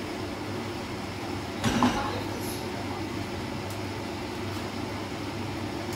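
A metal spoon clinks and scrapes once against a frying pan of tomato sauce about two seconds in, over a steady low hum.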